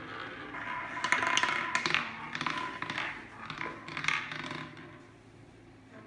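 Roulette ball clattering in a spinning wheel, a rapid run of clicks and taps as it bounces among the pockets, starting about a second in and dying away after about four seconds.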